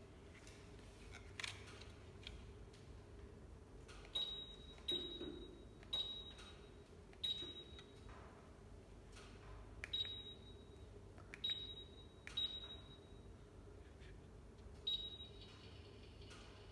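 Electric fireplace giving short high beeps, about eight of them at uneven intervals, as its settings are changed from the remote control. Under them runs the faint, irregular crackle of its built-in log-fire sound effect.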